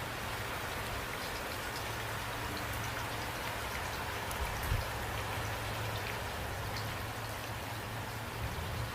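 Steady rain falling, an even hiss with scattered drop ticks and a low rumble underneath, and a soft thump about halfway through.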